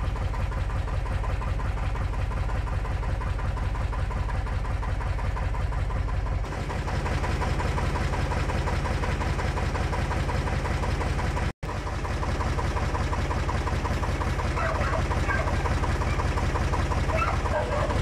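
1992 Torpedo TX55A tractor's diesel engine idling steadily, with an even rhythmic beat.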